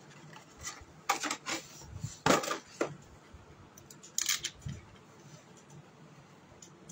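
Hard plastic wireless computer mouse being handled and turned over among packaging: a few short clicks and clatters, the loudest about two seconds in.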